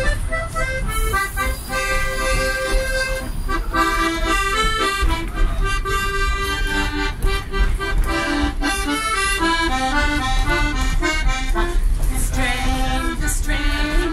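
Piano accordion playing a tune: a melody of changing notes over lower sustained notes, without a break.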